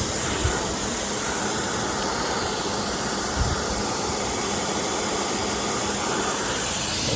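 Pressure washer spraying a wide 40-degree fan of water onto a truck's body, a steady hiss of water. Two brief low thumps come about half a second and three and a half seconds in.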